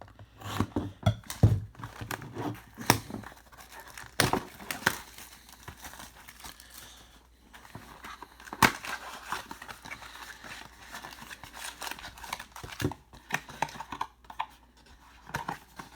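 Wrapping on a box of trading cards being torn open and crinkled by hand, with irregular crackling rustles and sharp snaps of plastic and cardboard.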